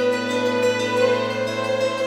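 Instrumental background music with sustained notes.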